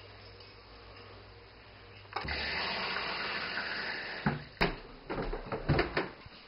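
Water running from a tap for about two seconds, followed by several sharp knocks and clatters.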